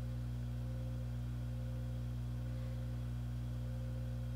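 Steady low electrical hum, a mains buzz with a few higher overtones, unchanging throughout.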